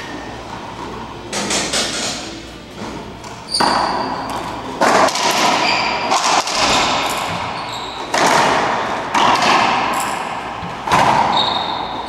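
Racquetball rally: the ball cracks off racquets and the court walls in a string of sharp hits about one to two seconds apart, each ringing in the enclosed court, with a few short squeaks of shoes on the hardwood floor.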